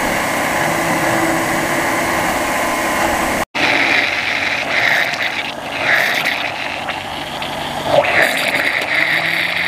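Countertop electric blender running at full speed, mixing mango pulp, cream and condensed milk in its jar. The sound drops out for an instant about three and a half seconds in, then carries on.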